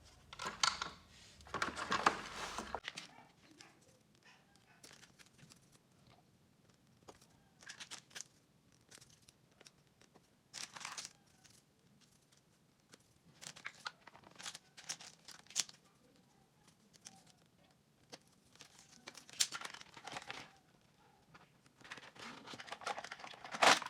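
Toy train track pieces being handled and fitted together: scattered clicks and short rustling, crinkling noises with quiet gaps between them.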